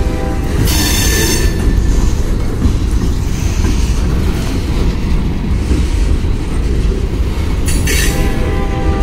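Freight train of boxcars rolling past: a steady low rumble of steel wheels on rail. Wheel squeal flares briefly about a second in and again near the end.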